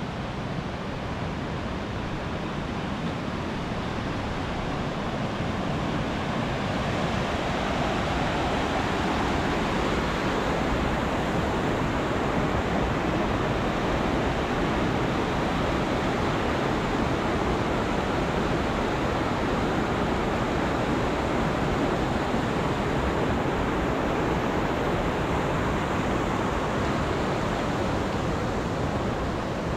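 Rushing water, a steady and even rush with no breaks.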